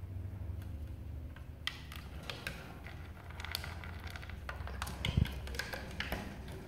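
Scattered light clicks and taps as a black-capped lory pecks through pellets in a plastic tray and handles a clear plastic foraging tumbler, with a dull knock about five seconds in. A steady low hum runs underneath.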